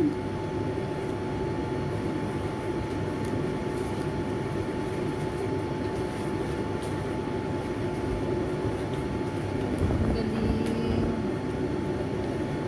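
A steady mechanical drone with a thin constant whine above it.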